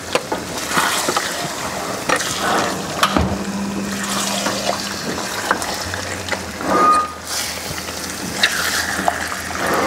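Chicken pieces frying in spice masala in a large stainless steel pan, cooked without water over fairly high heat, sizzling steadily. A spatula stirs and scrapes them around, with occasional knocks against the pan.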